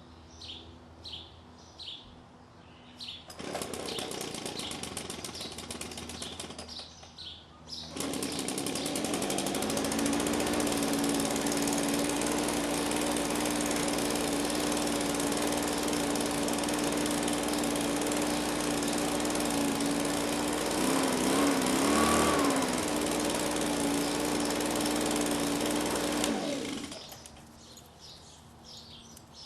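Small gasoline engine on yard equipment started up: it runs for a few seconds and stops, then starts again about eight seconds in and runs steadily at a fixed speed, its pitch wavering briefly before it is shut off near the end. Birds chirp before it starts and after it stops.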